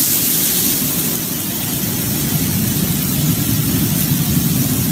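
Fast-flowing floodwater rushing along a street in heavy rain: a loud, steady wash of noise.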